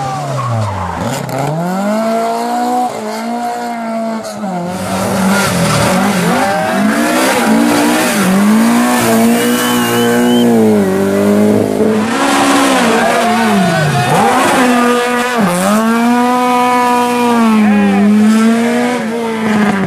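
Rally car engine revved hard, its pitch climbing and falling again and again, with sudden drops as the throttle is lifted, and tyres squealing.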